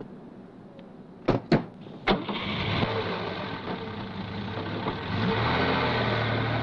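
A car door shuts with two sharp knocks a little over a second in. Then a Volkswagen Beetle's air-cooled flat-four engine starts and runs, getting louder and steadier from about five seconds in as the car pulls away.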